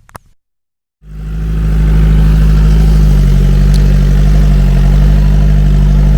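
An engine runs loudly and steadily close to the microphone, starting about a second in after a short click and a brief dropout.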